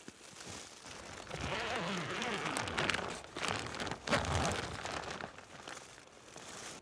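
Nylon tent fabric rustling and crinkling as it is handled, swelling up through the middle few seconds with a few sharper crackles, then settling.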